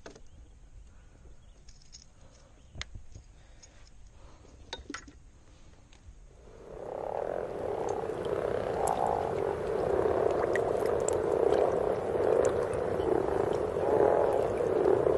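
A dense chorus of frogs croaking starts about six and a half seconds in and carries on loudly. Before it there are only a few faint clicks and knocks.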